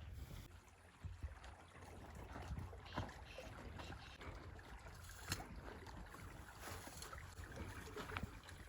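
Water sloshing and splashing, with scattered sharp knocks and clicks of stones, typical of hands or a tool working through river gravel.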